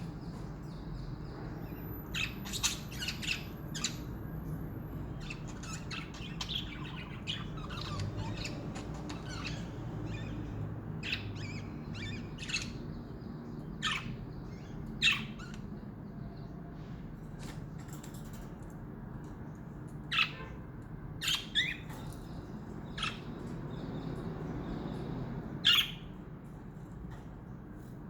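Pet budgerigars chirping and squawking in short, sharp calls scattered irregularly, a few of them louder, over a steady low background hum.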